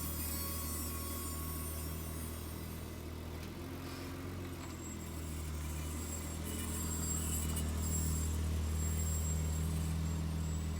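Car rolling with its brakes making a scraping, squealing noise over a steady low hum. The noise comes from the brake pad wear indicators rubbing on the rotors, the sign that the pads are nearly worn out and due for replacement.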